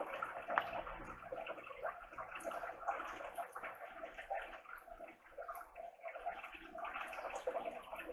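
Close-miked wet chewing of a mouthful of ramen noodles: a continuous run of small smacking, squelching mouth clicks.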